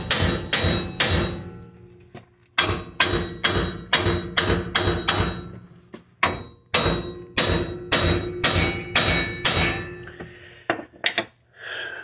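Runs of hard metal-on-metal hammer blows, about two to three a second with short pauses between runs, each with a metallic ring: a small sledgehammer striking a seized wheel bearing hub assembly to knock it out of the steering knuckle.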